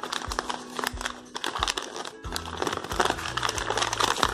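Newspaper and plastic wrapping crinkling and rustling as a glass food container is unwrapped by hand, with background music that has a steady beat.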